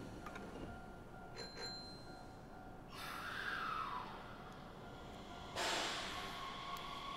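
Electric train at a station platform: a short high tone about a second and a half in, a falling whine about three seconds in, then a sudden louder rush of train noise about five and a half seconds in, with a steady whine that carries on.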